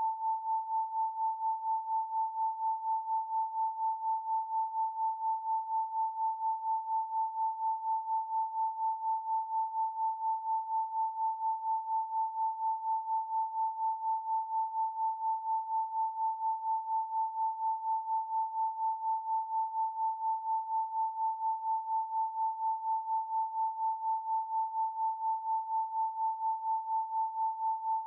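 Pure 888 Hz sine tone, held at one steady pitch and pulsing evenly in loudness several times a second.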